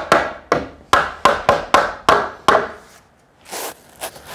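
Hammer tapping a new softwood garage door-frame post into position: a rapid run of about ten sharp wooden knocks, roughly four a second, that stops about two and a half seconds in. A short rubbing scrape follows near the end.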